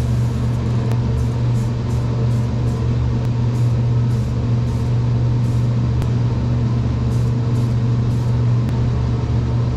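An electric motor running with a steady low hum, overlaid by a series of short, faint hisses from an aerosol spray-paint can.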